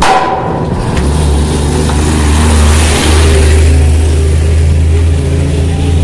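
A truck driving past close by on a concrete road: its noise swells to a peak in the middle and fades, over a heavy, steady low rumble.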